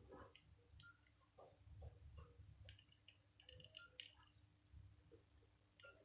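Near silence, with faint scattered clicks and a few short, high beeps.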